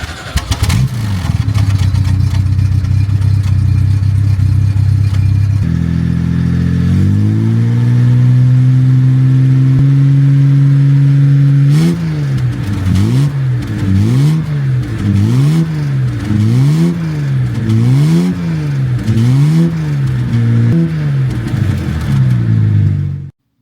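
An engine running steadily, rising in pitch about six seconds in, then revved up and down in even blips a little more than once a second until it cuts off near the end.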